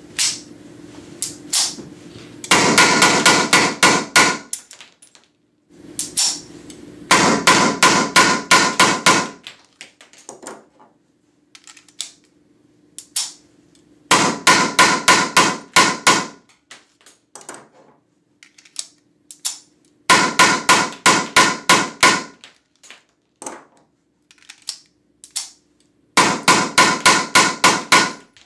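Blank-firing gun shooting Umarex PTS blank cartridges in five rapid strings of shots, several a second, each string lasting about two seconds. Scattered clicks come between the strings.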